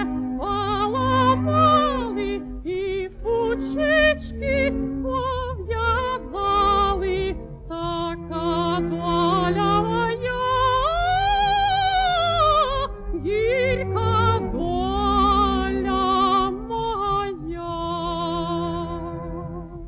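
A woman singing a slow song with wide vibrato in long, held phrases, over an accompaniment of sustained low notes.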